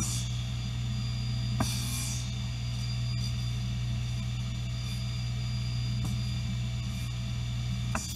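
Steady electric machine hum, unchanging throughout, with a few light knocks as a wooden board is shifted on a table saw's steel top.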